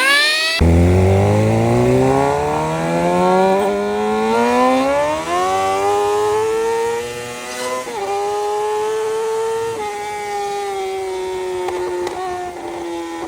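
Heavy sport motorcycle with a loud full-system Toce aftermarket exhaust accelerating, its engine note climbing steadily for several seconds. The pitch then drops briefly twice and settles into a near-steady cruise that eases down near the end.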